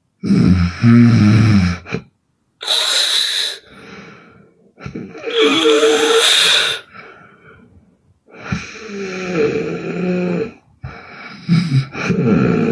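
A sleeping woman snoring hard, about five loud breaths in a row. Some breaths are low and rattling, others breathy and hissing.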